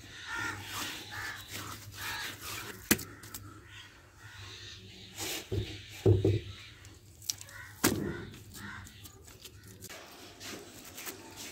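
Wet mud being pressed and smoothed by hand around the fire opening of a clay stove, with a few sharp slaps, the loudest about three, six and eight seconds in.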